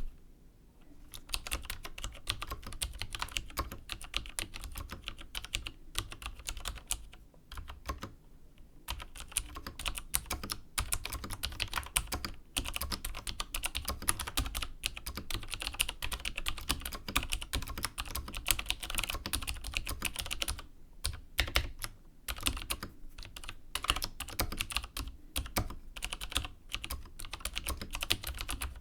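Steady typing on a 1992 Chicony KB5581 mechanical keyboard with vintage Cherry MX Dark Blue tactile switches: a fast, continuous run of keystroke clicks with a few short pauses.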